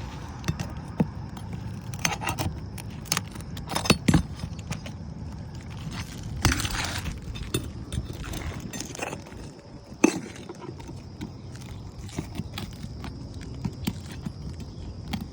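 Roofing nails being worked out of old 3-tab asphalt shingles: irregular metallic clicks, clinks and knocks, with a short scrape about six and a half seconds in and one sharp knock about ten seconds in.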